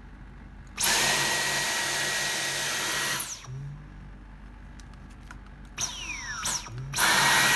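Dyson Cyclone V10 Fluffy cordless stick vacuum running on Max mode: a loud rushing whoosh with a steady high whine. It switches on about a second in, cuts off after about two and a half seconds with a falling whine, and switches on again near the end.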